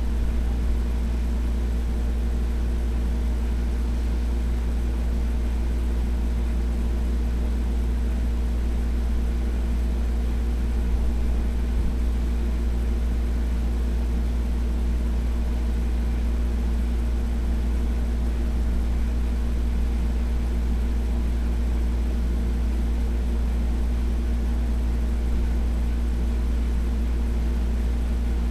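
A steady low machine hum with a fainter higher drone over it.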